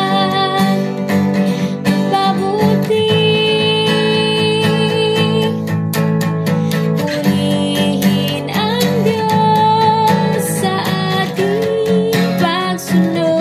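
Instrumental background music led by acoustic guitar, with a steady melody over sustained chords.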